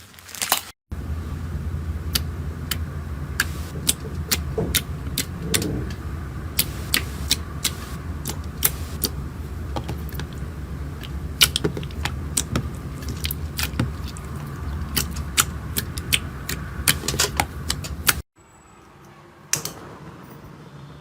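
Slime being squeezed and worked by hand, giving many sharp clicks and pops over a steady low rumble.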